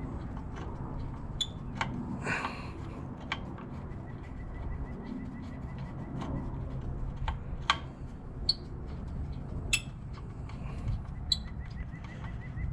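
Hand screwdriver driving screws into a snowblower engine's plastic housing, with scattered sharp clicks as it turns. Birds chirp now and then in the background.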